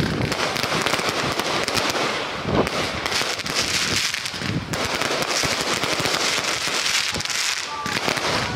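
Electrically fired firecracker barrage going off continuously, a dense, rapid crackle of overlapping bangs with no pauses.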